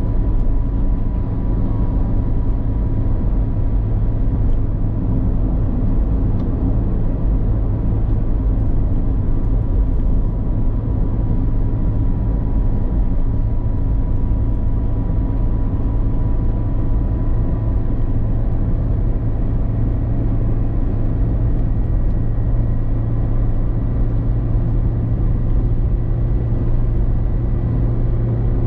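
Steady low rumble of a moving car's engine and tyres heard from inside the cabin, with a faint steady whine above it.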